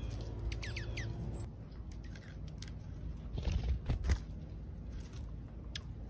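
Small songbirds at a backyard seed feeder give a few short chirps about half a second in, over a low steady hum. A cluster of knocks and low thumps follows around three and a half to four seconds in, the loudest part.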